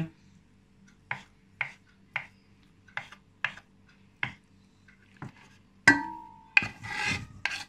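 Kitchen knife chopping boiled eggs on a wooden cutting board: about seven sharp chops, roughly one every half second. Near six seconds a loud knock with a short ring against the enamel pot, then scraping as the chopped egg is pushed off the board into the pot.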